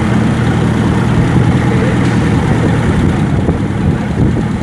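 Gasoline engine on a test stand running steadily at idle during a tune-up.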